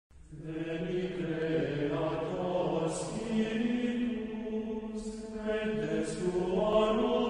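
Slow sung chant, a voice holding long notes as opening music, fading in at the start.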